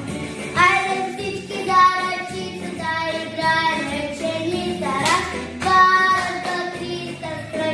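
A young girl singing a song, holding and sliding between notes, with music behind her.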